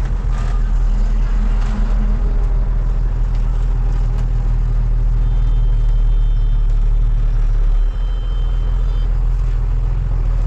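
Heavy truck's diesel engine and road noise heard from inside the cab while driving: a steady low drone, with a brief dip about eight seconds in.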